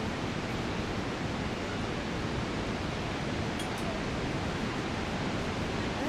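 Steady roar of Niagara Falls and the rushing river below it: an even, unbroken rushing noise.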